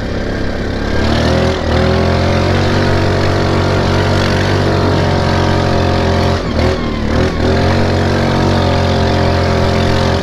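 Linhai 400S Dragonfly ATV engine running under load: its note rises about a second in and then holds steady, with two brief dips, as the throttle is eased off and reopened, about six and a half and seven seconds in.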